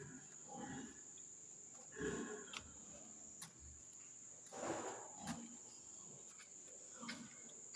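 Pigs grunting, about five short separate calls, over a steady high-pitched chirring of night insects.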